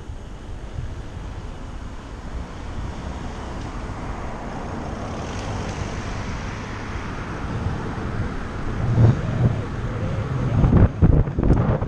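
Wind rushing over the microphone of a bicycle-mounted camera, growing louder as the bike gains speed and buffeting heavily near the end. A car passes about halfway through.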